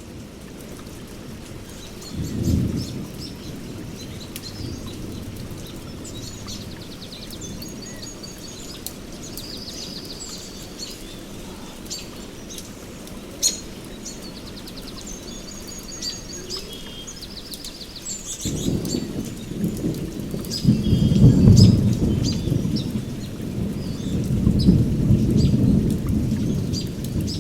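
Steady rain with thunder: a short rumble about two seconds in, then a long rolling peal from about two-thirds of the way through that swells twice. Birds chirp and trill over the rain, and there is a single sharp tap near the middle.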